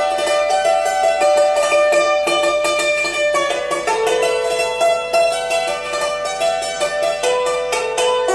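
Background music: a fast plucked-string instrumental, rapid picked notes over held melody tones.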